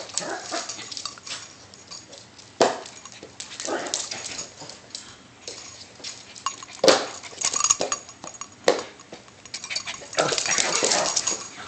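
A small white fluffy dog makes a few short, sharp sounds spaced a few seconds apart, then a longer rustling sound near the end.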